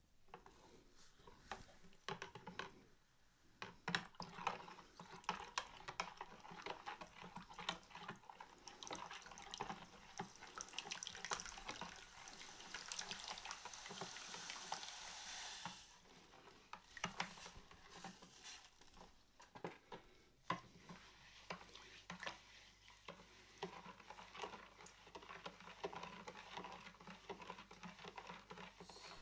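A metal spoon stirs water in a plastic bowl, with many light clicks against the sides, as salt is dissolved to make a brine. About nine seconds in, salt poured from a carton into the water adds a steady hiss that stops suddenly near sixteen seconds; the clicking stirring continues after it.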